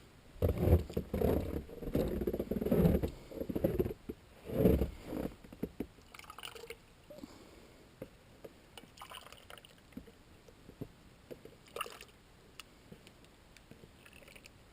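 Rustling and scraping handling noise for about four seconds, then faint scattered clicks.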